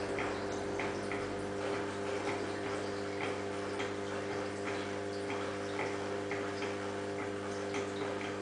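Aquarium pump humming steadily, with water dripping in short, uneven drops, about two a second.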